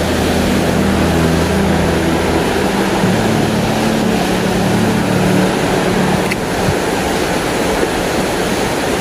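Small mountain stream rushing and splashing over rocky cascades, a steady loud rush of water. Low steady tones sit underneath it and shift pitch every couple of seconds.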